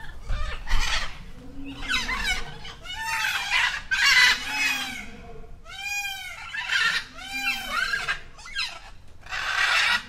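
Peacock calling: a series of loud, harsh calls, roughly one every second or so, each rising and then falling in pitch.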